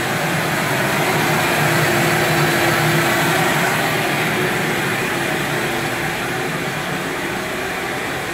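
Vacuum dust-collection system on a CNC router running steadily, with a steady motor hum under a loud rush of air. It has been switched on by the CNC controller's M8 command.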